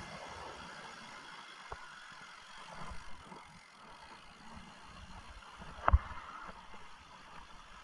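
Mountain bike rolling over a trail: a steady rumble and hiss of tyres and wind, with scattered small knocks and one loud thump about six seconds in as the bike jolts over a bump.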